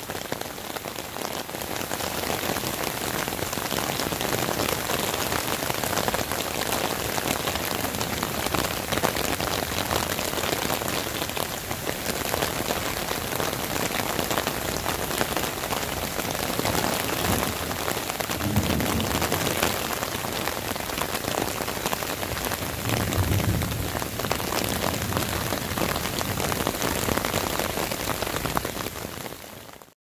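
Steady rain falling on tree foliage, a dense, even hiss of drops, with a low rumble swelling up twice in the second half.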